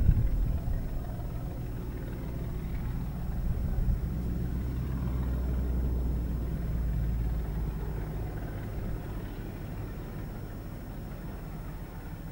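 Distant diesel locomotive hauling a passenger train past, its engine a steady low rumble. There is a short louder burst at the very start, and the rumble swells in the middle and then eases off as the train moves away.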